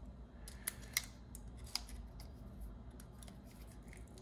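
Short sharp metallic clicks, about half a dozen in the first two seconds, as tongue-and-groove pliers grip and bend a thin steel frame piece from inside an Oral-B electric toothbrush.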